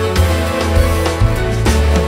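Background music: a band track with a steady bass line, held pitched notes and regular drum hits.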